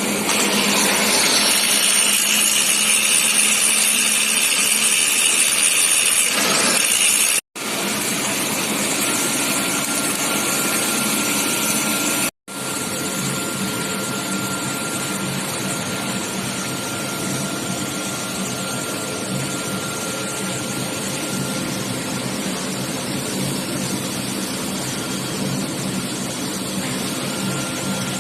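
A machine running steadily, cut off abruptly twice, about seven and twelve seconds in, each time for a moment only. A faint, thin, steady high whine runs through the middle stretch.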